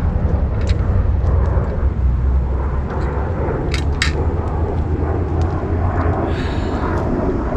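Steady low rumble of wind buffeting the camera microphone, with a few sharp clicks, two of them close together about four seconds in.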